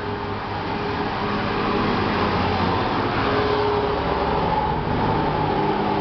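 Tower fan's cross-flow blower running under power with its housing open: a steady whoosh of moving air and motor noise, with faint tones that drift slowly.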